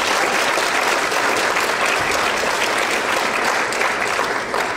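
Audience applauding: steady, dense clapping that begins to die away near the end.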